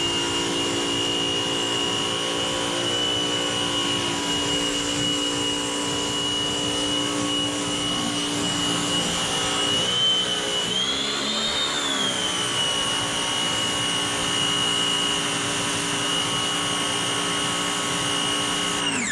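Electric pressure washer motor running steadily while blasting a water spray, with a high-pitched whine. The pitch wavers briefly about halfway through, and the motor cuts off suddenly near the end.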